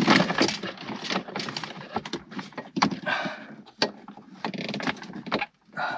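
Wiring and plastic dash trim being handled as cables are fed through behind the dashboard: irregular rustling and scraping with a few sharp clicks.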